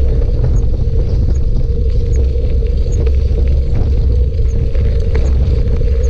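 Steady low rumble of wind and riding vibration on the microphone of a camera carried on a moving bicycle, with a constant hum and faint, evenly spaced ticks.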